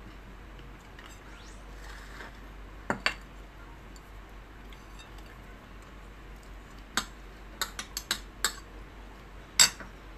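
Metal spoon and ceramic plate clinking against each other. There are two sharp clinks about three seconds in, then a quick run of about six around eight seconds, and the loudest clink near the end.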